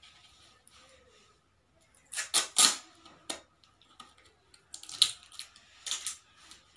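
Scissors cutting pieces of sellotape from a roll: a cluster of short, sharp snipping sounds about two seconds in, then more around five and six seconds.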